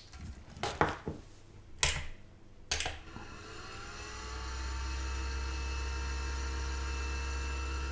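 A few clicks as the leads are connected, then the Pentium II's stock CPU cooler fan spins up about three seconds in, its whine rising briefly and then running steadily with a hum. The noisy running comes from worn bearings after many running hours.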